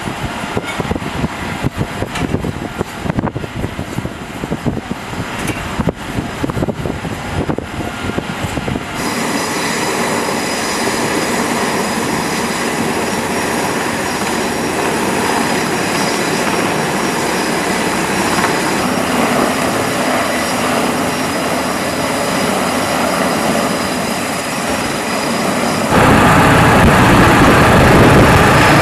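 Wind buffeting the microphone with an uneven flutter for the first several seconds. Then the steady turbine whine and rotor noise of a Navy Seahawk helicopter flying past. About two seconds from the end, carrier-deck jet engine noise cuts in much louder, with a low rumble.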